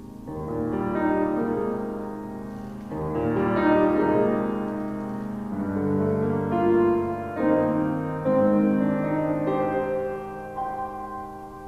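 Piano playing slow, sustained chords in swelling phrases: the instrumental introduction before the solo voice comes in.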